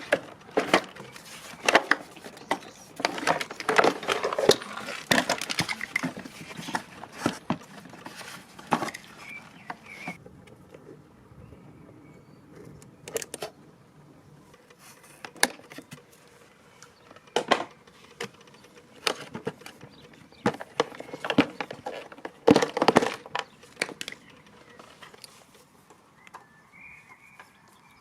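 Clattering, clicking and knocking of hard plastic and metal parts being handled as an old pressure washer is taken apart for scrap. The clatter is busy for the first few seconds, then thins to scattered knocks with a few louder bursts.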